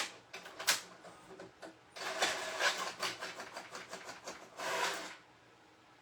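Handling noises: rustling and clicking of objects being moved about, in several bursts with a longer stretch in the middle and one last burst near the end, over a faint steady hum.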